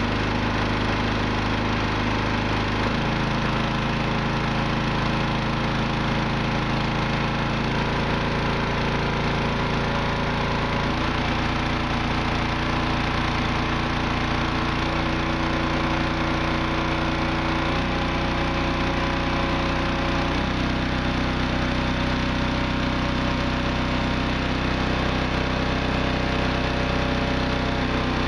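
Gasoline engine running steadily, driving a Windtura 750 generator through a pulley while it charges a 24-volt battery bank. The pitch shifts in several small steps as the speed is raised, taking the generator from about 570 to 680 rpm and the charging current from about 24 to 31 amps.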